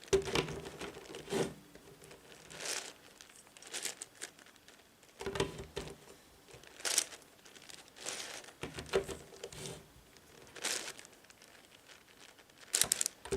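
Layers of a heavy 11x11x11 Rubik's cube being turned by hand: scattered plastic clicks and scraping rattles, one turn about every second.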